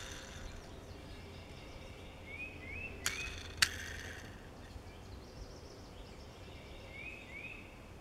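Quiet handling noise as a small die-cast toy truck is turned in the fingers: two sharp clicks about half a second apart, roughly three seconds in, over a faint low hum. A faint rising two-note chirp sounds twice.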